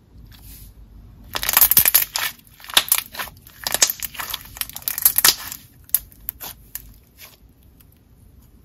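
Green honeydew jelly slime with snow granules being squished by hand: a run of wet crackles and bubble pops that dies down about seven seconds in.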